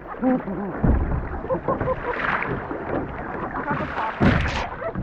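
Water noise around a kayak, with wind on the microphone and a few brief, indistinct voice sounds. Two louder bursts stand out, about a second in and near the end.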